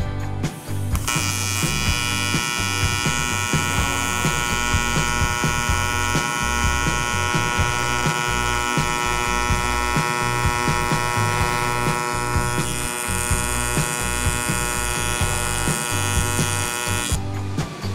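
AC TIG welding arc on aluminium tubing: a steady, high electric buzz that starts about a second in and cuts off sharply near the end.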